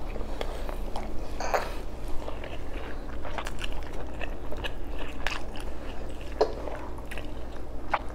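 Close-up chewing and wet mouth clicks of a person eating rice and boiled oxtail by hand, in short irregular smacks.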